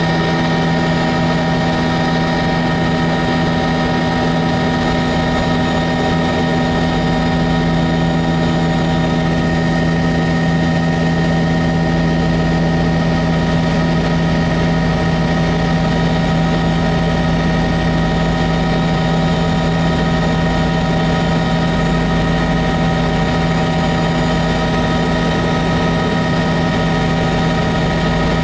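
Helicopter in flight heard from inside the cabin: steady, loud engine and rotor noise with a constant hum of several held tones that never changes in pitch or level.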